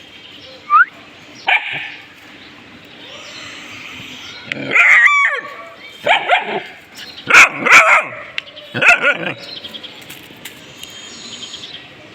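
A dog barking several times, in short loud barks and yips with pauses between them.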